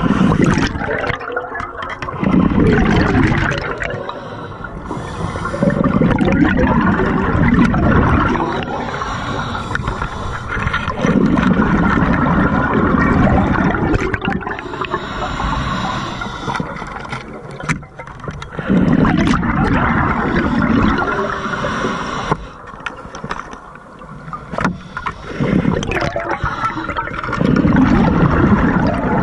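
Scuba diver breathing through a regulator underwater: about five loud bubbling rushes of exhaled air, a few seconds apart, with a quieter hiss of inhaling between them.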